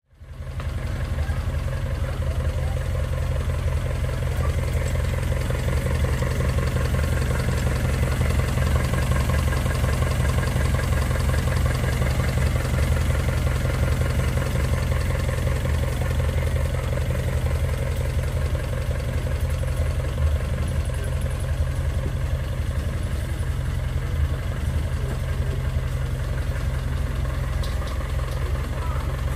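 Datsun 510's four-cylinder engine idling steadily on a newly installed electronic distributor and coil, which replace worn-out breaker points.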